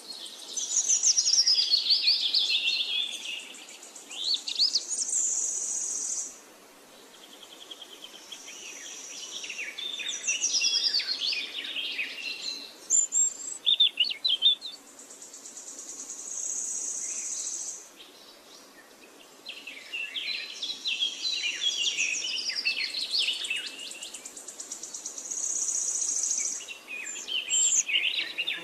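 Birds chirping and singing in clusters of quick, high, rising and falling notes, with stretches of a steady high buzz. Quieter spells come about a third of the way in and again about two-thirds through.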